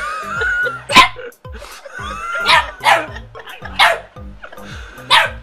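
Puppy barking in about five short, sharp yaps, over background music.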